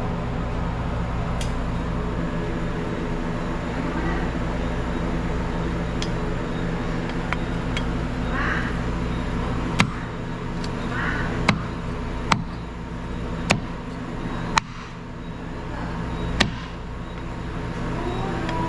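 Knife chopping barbecued chicken into pieces on a board: six sharp chops in the second half, about one to two seconds apart, over a steady low hum.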